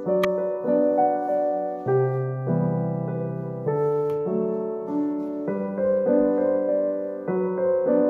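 Background piano music: a new chord struck about every second and left to fade.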